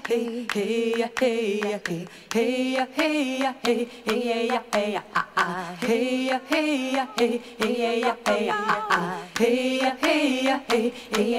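Women's voices singing a chant-like melody a cappella in short phrases of held notes, over finger snaps keeping the beat.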